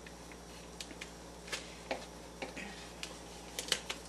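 Scattered faint clicks and crinkles of a plastic turkey wrapper being cut and pulled off with a knife, with a few sharper clicks near the end.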